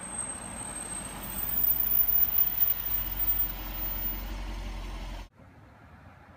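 2014 Range Rover L405 brakes squealing with thin, very high-pitched tones over the noise of the car rolling slowly along a street; the sound cuts off abruptly about five seconds in. The owner takes this squeal as the sign that the pads and rotors need replacing again.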